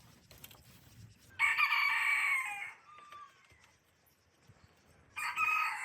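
A rooster crowing twice, each crow lasting just over a second, the second starting about five seconds in.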